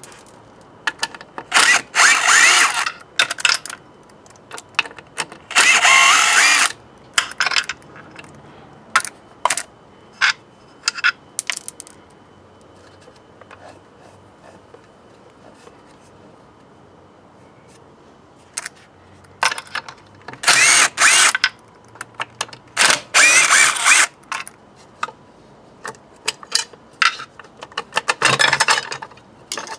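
Bolts on a BMW K75 motorcycle's clutch being undone with a socket on an extension. There are loud bursts of a second or so each, several times, with light metal clicks and clinks of parts being handled in between.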